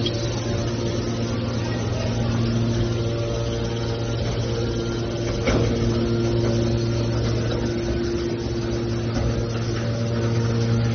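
Hydraulic scrap-metal baler's electric motor and hydraulic pump running with a steady hum, with one short sharp knock about halfway through.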